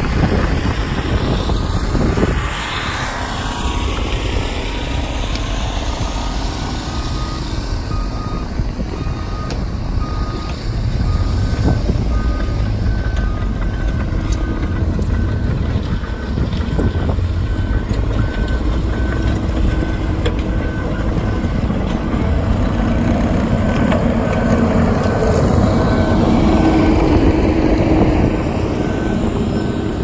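Heavy earthmoving machinery running (excavator, bulldozer and compact track loader engines) with a low steady rumble, while backup alarms beep in steady, evenly spaced trains at two slightly different pitches. A brief falling whine sounds a couple of seconds in.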